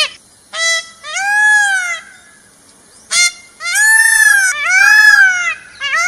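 Peacock calling: loud, wailing calls that rise and fall in pitch. A short note comes first, then a wail about a second long. After a pause of about a second there is another short note, then a run of long wails.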